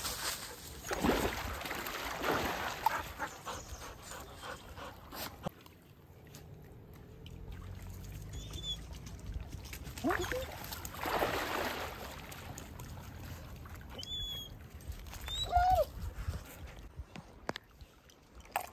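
A dog whining briefly twice, short whines that slide up and then down in pitch, among two longer bursts of scuffling noise and a few faint high chirps.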